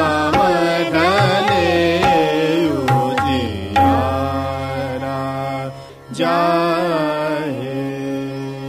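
Indian classical vocal music in raag Hansadhwani: a singer draws out long gliding melodic runs on a phrase of the bandish over a steady drone, with tabla. The music fades down near the end.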